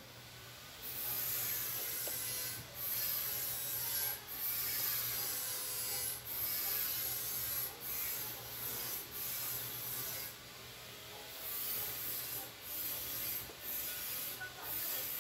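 FM radio static hiss from a car audio amplifier's built-in FM tuner playing through its speaker. It comes in about a second in and dips briefly every second or two, over a faint steady low hum.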